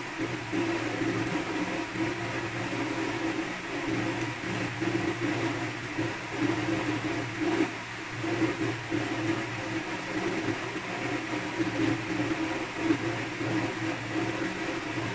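Steady hum of a small electric motor running, with a slightly wavering drone.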